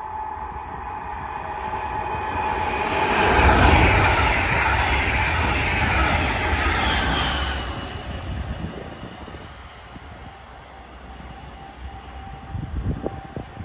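Red double-deck regional passenger train passing on the line: its rumble and wheel noise on the rails swell as it approaches, stay loud for about four seconds as the coaches go by, then fade quickly as it moves away.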